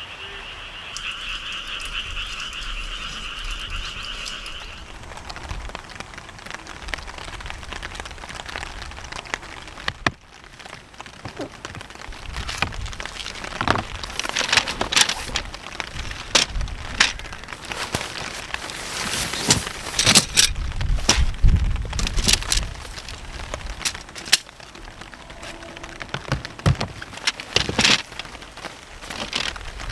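Tree frog calling, a continuous trill for about the first five seconds. After about ten seconds, nylon stuff sacks rustling and crinkling with sharp crackles as they are pulled and shifted against a plastic storage box.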